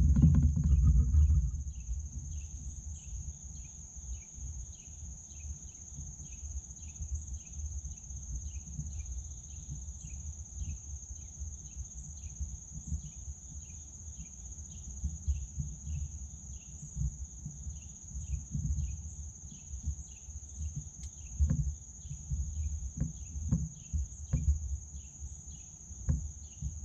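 Insects calling in woodland: a steady high-pitched trill, with a second insect chirping about twice a second. Underneath runs a low rumble with scattered small knocks, loudest in the first second or two.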